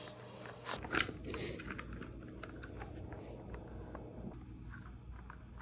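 Faint clicking and knocking of a hard plastic treat puzzle toy as a small dog noses and shoves at its pieces, with two sharper clicks about a second in, over a low steady hum.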